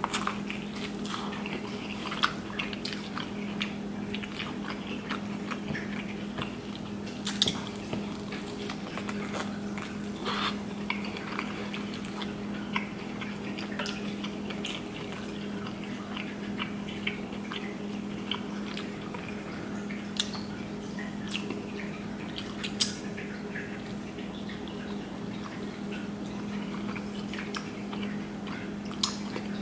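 Close-up eating sounds: wet biting and chewing of a sauce-covered corn cob, with sharp cracks and snaps as snow crab leg shells are broken apart by hand, over a steady low hum.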